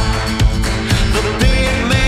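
Background pop music with a steady beat, about two beats a second, under a melody.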